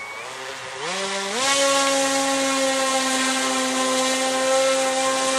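Small model-airplane engine run up to full throttle. Its pitch climbs in a couple of quick steps about a second in, then holds a steady high buzz. This is a revs check, with the tachometer reading about 8,300 rpm and then settling at 7,900.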